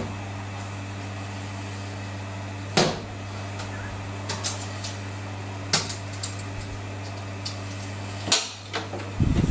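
Sharp clicks and knocks from a folding aluminium-framed solar panel as its edge latches are worked and the case handled, several separate snaps with the loudest about three seconds in and near the end, over a steady low hum.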